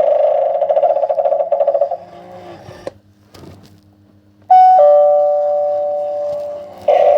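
Novelty doorbell's electronic two-note ding-dong chime, a higher note then a lower one, ringing out and fading over about two seconds. Before it, a loud warbling sound effect from the doorbell fades out into a short near-silent gap, and another loud effect starts near the end.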